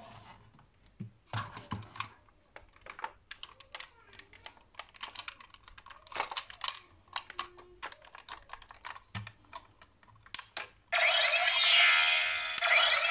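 Hard plastic parts of a toy robot clicking and clacking as its legs and body are folded by hand, many short irregular clicks. About eleven seconds in, the toy's electronic sound effect starts playing loudly, a warbling tone through its small speaker.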